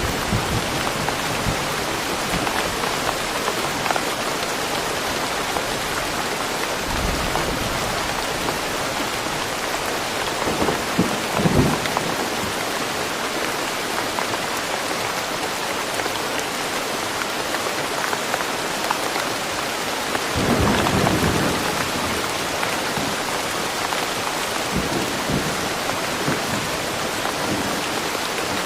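Steady rain falling in woodland, with low rolls of thunder. The loudest rumbles come about a third of the way in and again about two-thirds in.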